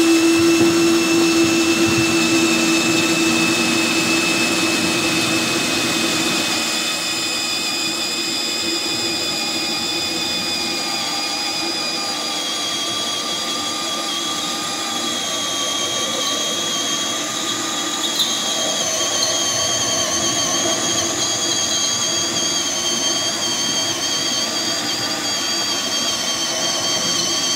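Cordless drill running continuously under load, boring through the steel side panel of a Yoder YS640 smoker: a steady motor whine whose pitch drifts slightly.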